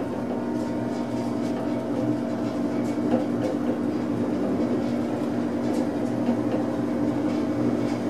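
Otis traction elevator cab travelling upward: a steady running hum with a few faint ticks.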